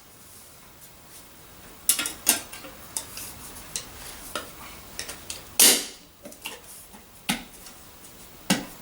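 Metal parts of a Hoover Junior vacuum cleaner and hand tools clinking and knocking while it is taken apart and put back together: a scattered run of sharp clicks and clacks, the loudest knock about five and a half seconds in.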